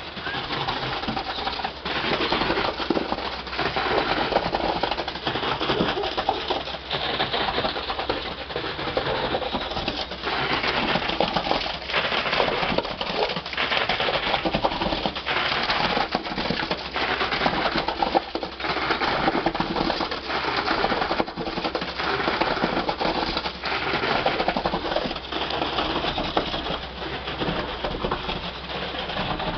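Mobile concrete pump running steadily, with concrete pushed through the pipeline to fill the footings: a continuous gritty churning noise with no break.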